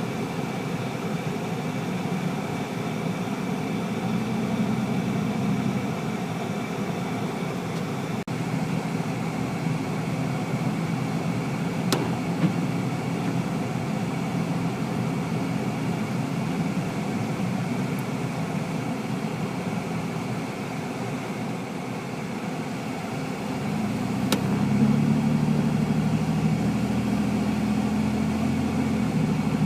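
Car engine and road noise heard from inside the cabin, steady throughout. About 25 seconds in the engine hum settles into a steadier, lower drone.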